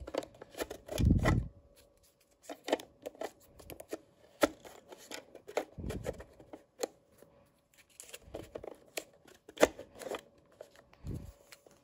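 Plastic clicks and rattles of a bolt-action Nerf foam-dart blaster being handled and loaded with darts, with a few soft thuds.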